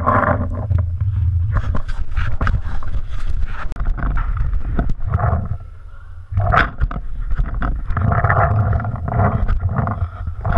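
Rumbling handling and wind noise on a paintball-gun-mounted GoPro as the player moves, with scattered sharp knocks. It dips quieter for about a second just past the middle.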